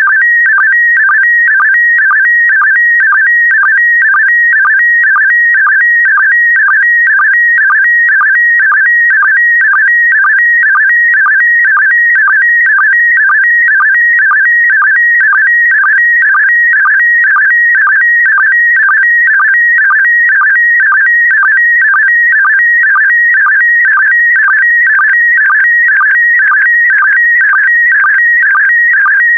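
Slow-scan television (SSTV) picture signal in PD120 mode: a loud, continuous warbling electronic tone that repeats a short pattern about twice a second as the image is sent line by line.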